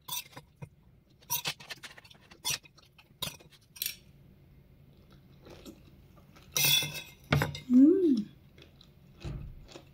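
A metal spoon clinking and scraping on a plate, with scattered short clicks through the first few seconds and a louder scrape about two-thirds of the way in, alongside the chewing of raw vegetable salad. Near the end comes a brief hum that rises and falls in pitch.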